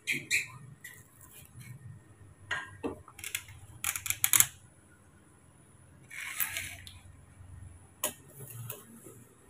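Clinks and knocks of a knife and hands against a stainless steel pot as pieces of peeled root are cut and dropped into the water in it, with a cluster of sharp strikes midway and a short swish of water about six seconds in.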